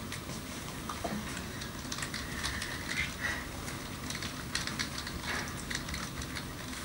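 Typing on a computer keyboard: irregular, light clicks of keys being struck.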